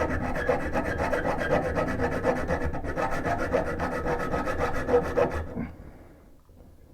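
Hacksaw cutting through a brass closet bolt just above its nut on a toilet, in quick, even back-and-forth strokes. The sawing stops about five and a half seconds in, with the bolt nearly cut through.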